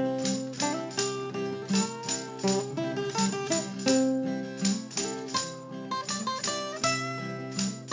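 Background music: a plucked acoustic guitar playing a melody over a steady rhythm of picked notes.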